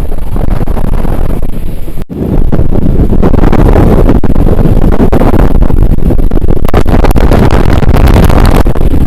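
Typhoon wind buffeting the microphone: loud, dense, steady wind noise, heaviest in the low end, with a brief sharp drop about two seconds in.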